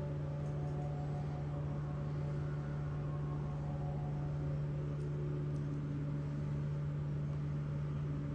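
A steady low drone with several fainter held tones above it, unchanging throughout.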